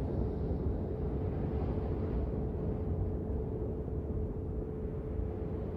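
Steady low rumbling drone from a meditation frequency track, with a faint sustained tone held underneath. It is unchanging throughout.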